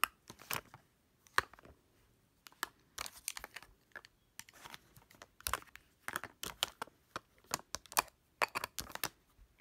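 Plastic makeup compacts and palettes being handled and set down: irregular sharp clicks and taps, with some rustling.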